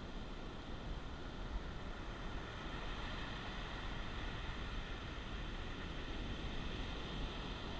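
Steady wash of ocean surf breaking on the beach, with wind on the microphone.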